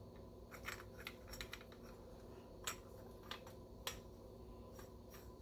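Faint, irregular light clicks and taps as a Fuji 75–150 mm M42 screw-mount lens and its M42 adapter are handled and fitted onto a mirrorless Nikon camera.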